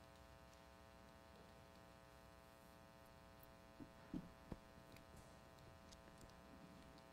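Near silence with a faint, steady electrical hum, and a few soft bumps and clicks about four seconds in.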